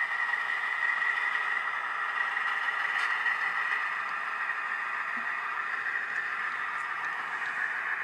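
Sound-equipped HO scale diesel locomotive (Atlas C424 with a Soundtraxx Tsunami decoder) running, its engine sound playing steadily through its small onboard speaker with a hiss.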